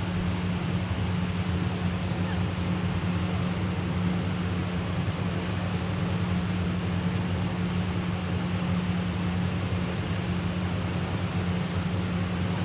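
A steady low machine hum over an even rushing noise, unchanging throughout.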